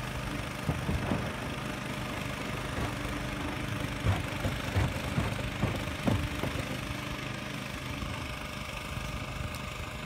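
Portable generator engine running steadily, with a few low thumps about a second in and again between four and six seconds in.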